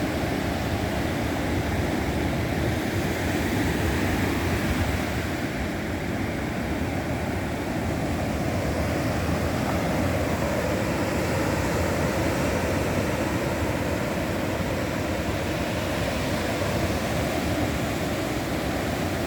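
Steady roar of ocean surf breaking on the beach, a continuous wash of noise with a heavy low rumble.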